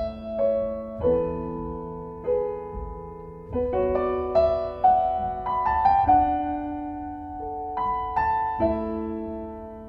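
Background music: piano chords struck and left to ring, changing every second or so.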